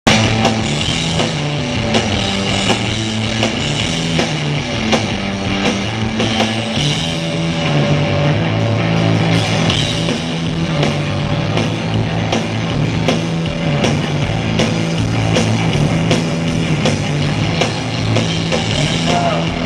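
Rock band playing live, with drums, bass and guitar, recorded by a small camera's microphone from the hall. Regular drum hits run over a bass line that changes note every second or so.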